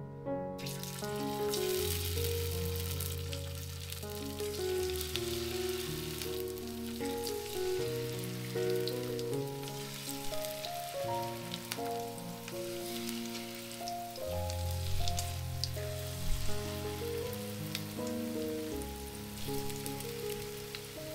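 Battered zucchini slices sizzling as they fry in hot oil in a pan, a steady hiss with small pops that starts about half a second in. Background music with a bass line plays along with it.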